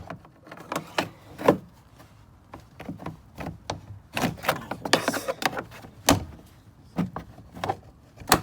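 Plastic retaining clips popping and the trim panel knocking as the interior door panel of a Toyota Sienna sliding door is pried off: a string of separate sharp clicks and knocks.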